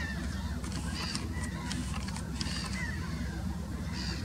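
Black-headed gulls calling: many short calls, one after another, over a steady low rumble.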